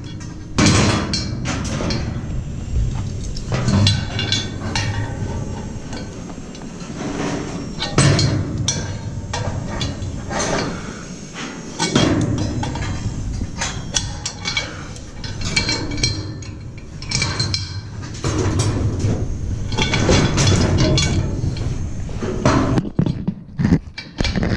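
Metal scaffold frames and decks clanking and knocking as they are handled and set in place, with many sharp, irregular knocks.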